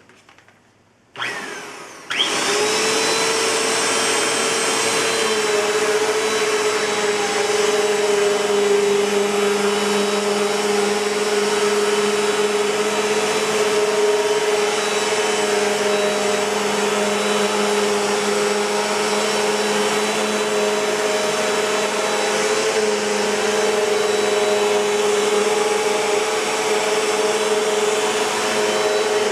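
Bissell PowerForce Compact (2112) bagless upright vacuum cleaner switched on about a second in. Its motor spins up and then runs steadily with a loud, even hum and whine.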